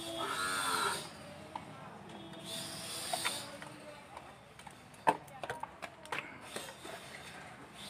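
Soldering iron melting the solder at a burnt diode joint on a CRT TV power-supply board: short hisses of flux sizzling, twice. About five seconds in come a few light clicks and taps of tools on the board.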